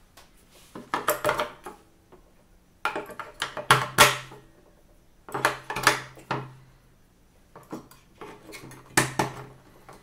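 Batteries being pressed into the battery compartment of a smart lock's plastic interior unit: clicks and small plastic and metal rattles in about four short bursts.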